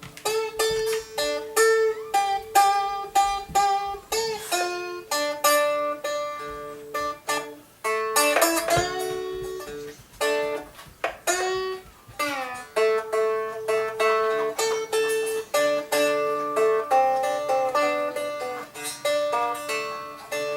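Havana Honeys cigar box guitar played acoustically, plucked with the fingers rather than picks: a blues melody of ringing single notes, a few of which slide in pitch.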